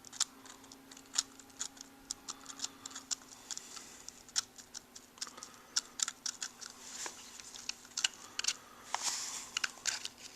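Irregular small clicks, taps and scrapes as the halves of an RC truck's transmission case are worked apart by hand, its parts and gears knocking lightly, over a faint steady hum.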